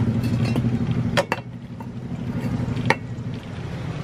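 A steady low motor hum that drops away about a second in, with two sharp metallic clinks, one as the hum drops and another near the three-second mark.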